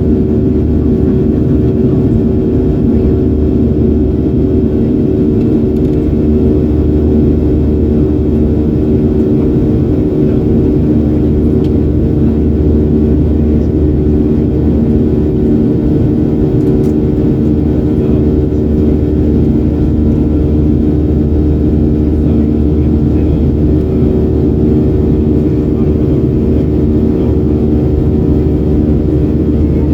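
Boeing 737-800 cabin noise: the CFM56-7B engines and airflow make a steady, loud drone with a low rumble and a constant multi-tone hum, heard from a window seat inside the cabin.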